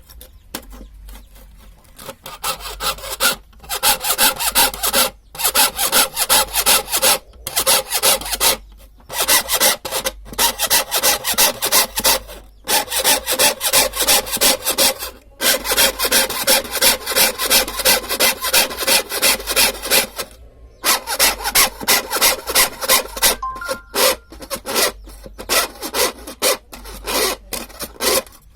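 Hand saw cutting through wood in rapid back-and-forth strokes, in runs broken by short pauses. The blade is lubricated with cooking oil.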